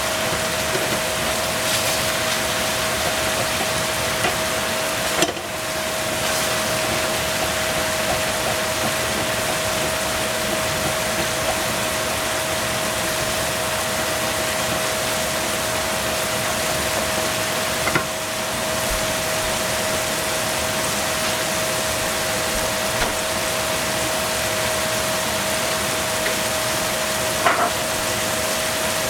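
Mushrooms simmering and sizzling in sauce in a frying pan, the liquid cooking down: a steady hiss with a steady hum underneath. Three brief clicks come about 5, 18 and 27 seconds in.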